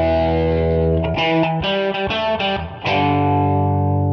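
Outro music: distorted electric guitar playing held chords, changing several times.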